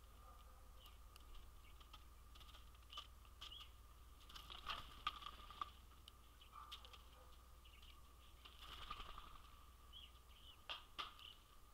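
Faint outdoor feeder sounds: scattered light ticks and taps, the sharpest about five seconds in and again near the end, with soft high chirps of small birds.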